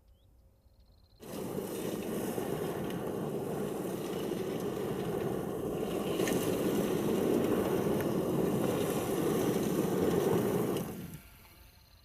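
Steady rushing noise of the electric Mercedes G580 G-Class driving off-road, with no engine note. It starts abruptly about a second in and dies away near the end.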